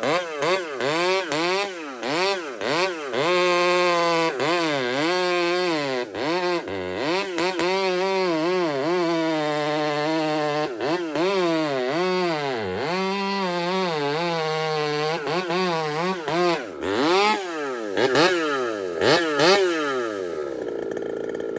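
McCulloch SP81 two-stroke chainsaw cutting through a big log, its engine running hard at high revs with the pitch dipping and climbing again and again as the chain bites into the wood. It stops abruptly near the end.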